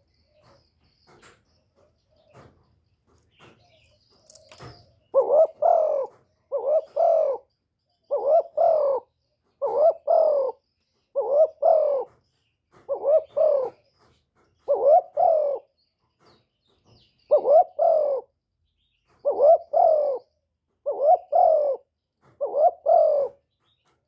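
Spotted dove cooing: eleven repeated two-part coo phrases, about one every second and a half, starting about five seconds in.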